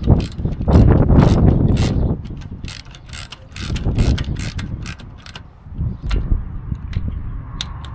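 Hand ratchet wrench clicking in quick runs as it is swung back and forth, running the front wheel's lug nuts down after the wheel is remounted. The clicks come thickest in the first couple of seconds, then in sparser runs.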